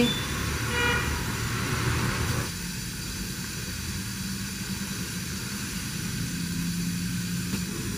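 Steady low rumble of a lit gas stove burner under a pot of simmering curry.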